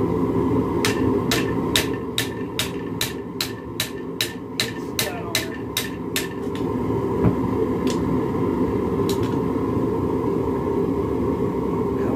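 Hand hammer striking a red-hot railroad spike clamped in a vise while it is forged into a knife: a quick, even run of about twenty blows, about four a second, then two single blows a few seconds later. Under the blows there is a steady drone.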